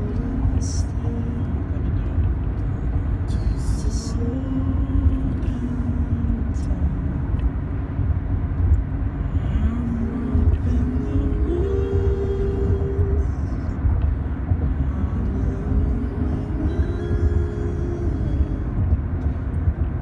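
Steady low road and engine rumble inside a moving Nissan car's cabin at highway speed. A singing voice in music plays over it, holding some notes for a second or more.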